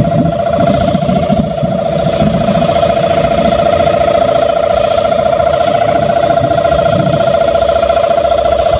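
Sendaren, the hummer bow strung on a flying Javanese kite, sounding one loud, steady droning note that wavers rapidly as the wind drives it, over a low wind rumble.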